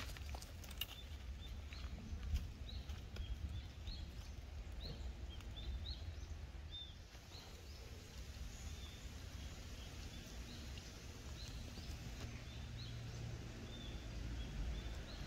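Birds giving short, high, repeated chirps in woodland at irregular intervals, over a low steady rumble.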